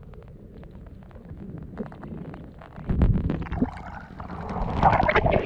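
Underwater sound through an action camera's housing: a steady low rumble with scattered crackling clicks. About three seconds in there is a louder low surge of water noise, and near the end a louder rushing, sloshing wash just below the surface.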